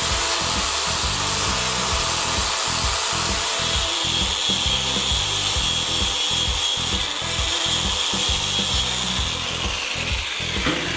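Angle grinder with an abrasive disc grinding a small steel part held in a vise: a steady grinding rasp, with a high whine that comes in a few seconds in and dies away near the end as the grinder is lifted off.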